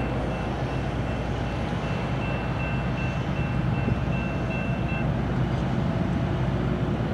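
CSX freight train led by a GE ES44AH diesel locomotive, running with a steady low engine rumble. A faint repeated high ding sounds until about five seconds in.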